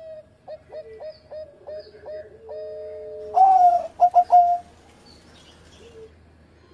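Zebra dove (perkutut) singing its cooing song: a string of short notes about three a second, then a louder burst of quick rolling coos about halfway through.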